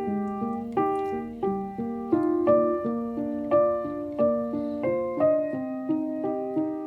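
Background music: a soft solo piano playing a gentle melody, notes struck a few times a second and left to ring.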